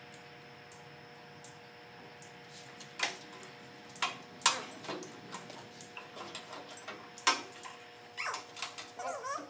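Scattered sharp clicks and snaps of old automotive wiring harness being pulled, handled and cut in a truck's engine bay. The loudest come between about three and five seconds in, with another just after seven seconds, over a steady electrical hum.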